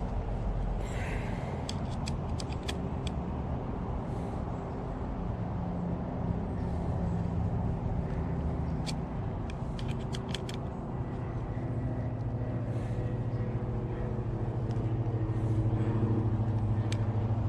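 A motor vehicle's engine running steadily, its low hum growing stronger in the second half. A few light clicks and taps sound over it.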